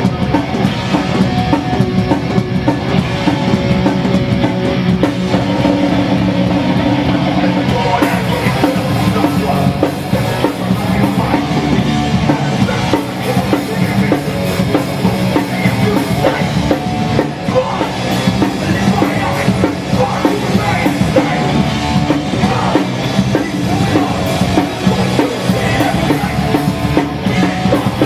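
Hardcore punk band playing live: distorted guitars, bass and pounding drums, with shouted vocals.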